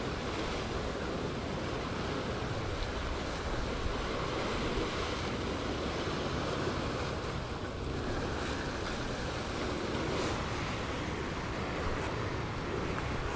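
Mediterranean Sea waves washing onto the shore in a steady wash, with wind blowing across the microphone.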